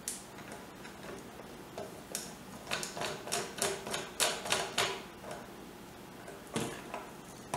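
Screwdriver turning the screws that hold the deuterium lamp in an Agilent HPLC diode array detector's optical unit: a run of light, irregular clicks, about three or four a second, from about two seconds in to about five seconds, with one more click near the end.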